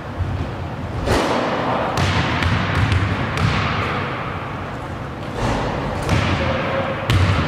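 Basketball thudding several times against the court and hoop, each sudden impact ringing out in the large, echoing gym hall.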